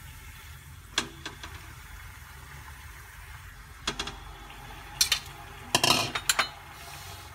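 Raw chicken pieces going into a large stainless steel pot of hot oil and onions: a few knocks and clinks against the pot, single ones about a second in and near the middle, then a louder cluster near the end, over a low steady hum.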